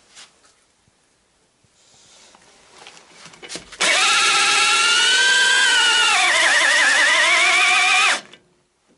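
Handheld corded electric drill running for about four seconds, starting a little under four seconds in. It spins a long rod with a sandpaper hone inside a cast-iron motorcycle cylinder clamped in a vise. The motor whine drops in pitch about halfway through, then wavers until it stops.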